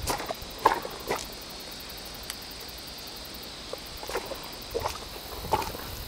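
Footsteps on a dirt and leaf-litter creek bank: a few soft steps near the start, then a pause, then steps again from about four seconds in, each roughly under a second apart.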